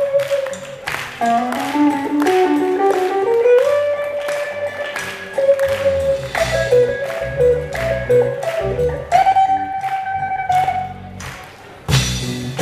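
Live rock band playing a song intro: a lead guitar line sliding and bending over drum hits, with bass coming in about halfway. Near the end there is a short break, then the full band crashes back in.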